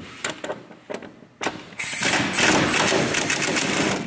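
A few clicks and knocks as the socket is set on the bolt. Then a pneumatic impact wrench runs loudly for about two seconds, undoing a strut top-mount bolt, and stops near the end.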